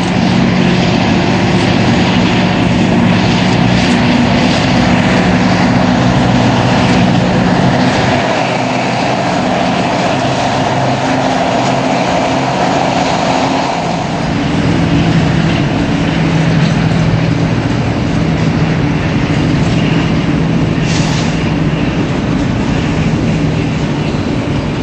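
Diesel-electric yard locomotive running past with its slug, the engine giving a steady drone whose note shifts a little lower about halfway through. A brief high hiss comes near the end.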